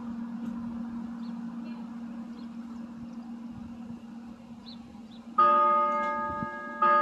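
A steady low hum with faint street noise, then, about five seconds in, a Schulmerich NovaBell electronic bell system starts to sound: two loud bell strikes, about a second and a half apart, each ringing on with long-held tones.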